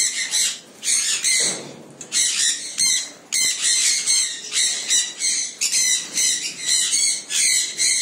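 Caged parrots squawking over and over: harsh, high calls coming two or three times a second.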